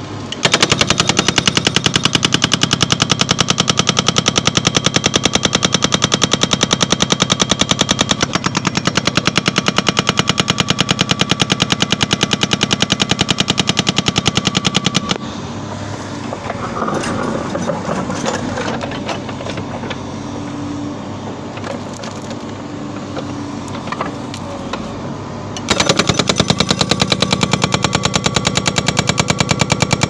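Hydraulic rock breaker on a Tata Hitachi Shinrai excavator hammering its chisel into the trench floor in a fast, even stream of blows. It stops for about ten seconds in the middle, leaving the machine running with some irregular knocks, then starts hammering again.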